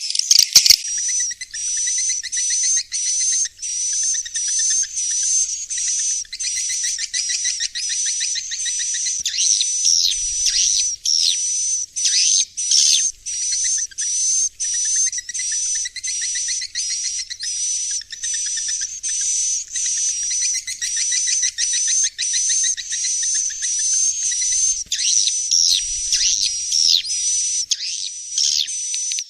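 Swiftlet roosting call: dense, high-pitched twittering chirps in rapid short bursts, about one and a half a second, with a sharp click under a second in. This is the 'inap' lure sound played in swiftlet houses to make young swiftlets settle and roost.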